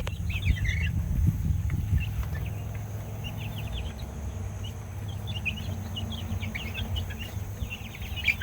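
Many baby chicks peeping in a brooder: a scatter of short, high cheeps over a steady low rumble.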